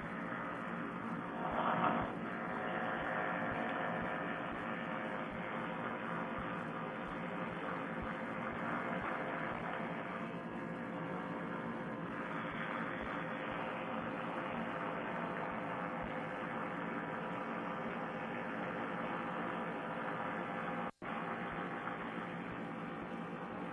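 Paramotor trike engine and propeller running steadily at power while climbing, heard through a Bluetooth headset microphone as a steady hum with a narrow, telephone-like tone. The audio drops out for an instant near the end.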